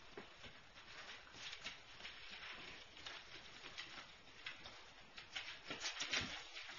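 Puppies' claws clicking and pattering irregularly on a hardwood floor as they walk and scuffle, with a louder bump near the end.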